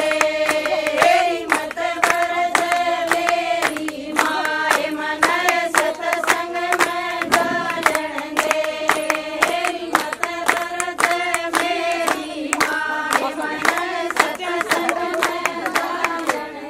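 A group of women singing a Haryanvi folk song together, with steady, evenly spaced hand-clapping keeping the beat.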